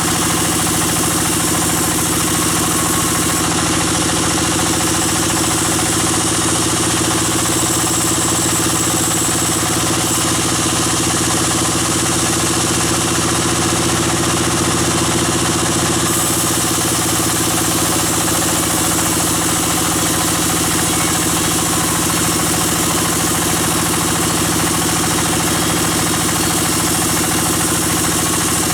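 Band sawmill machinery running steadily: an even, engine-like hum with several fixed tones and a hiss, holding the same level without a break.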